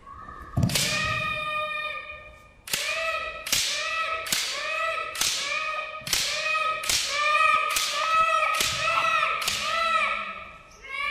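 Kendo practice with bamboo shinai: a sharp strike, then after a short pause a steady run of about nine more, a little faster than one a second. Each strike comes with a child's high-pitched shouted kiai.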